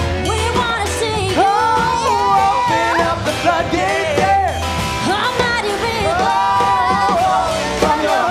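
Live band playing a funk arrangement of a worship song, with a gliding melodic lead line over a steady bass groove.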